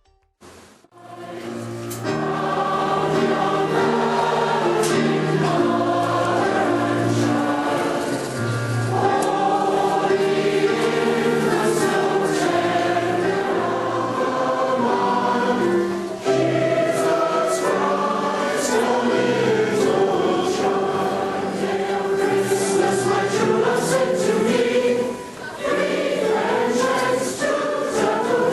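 Choir singing, starting about a second in after a brief quiet gap.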